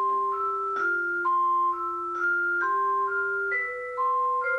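Vibraphone played four-handed, one player in the lower octaves and one in the upper, in a melody of struck, ringing metal-bar notes: a low line moves under a higher one, each note sustaining for about half a second to a second before the next is struck.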